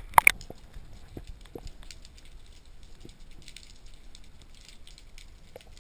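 Muffled sea ambience heard from under the water: two sharp knocks just after the start, then faint scattered clicks and crackles over a low rumble.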